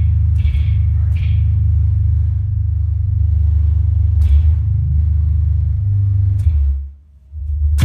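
Electric bass guitar played through the PA at sound check, heavy low notes with sharp string attacks; it stops briefly near the end, then comes back in.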